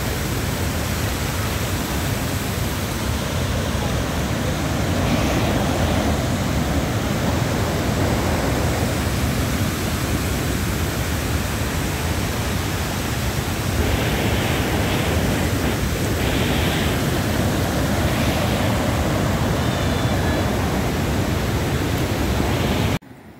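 Steady, loud rush of muddy floodwater pouring across a road, a constant noise with no rhythm. It cuts off suddenly near the end.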